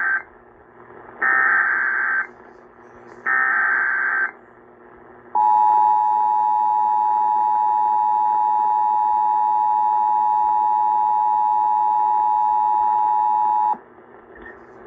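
Emergency Alert System activation. The tail of one SAME header data burst is followed by two more harsh digital bursts, each about a second long. Then the two-tone attention signal sounds steadily for about eight seconds and cuts off abruptly. Together they open the relay of a severe thunderstorm warning.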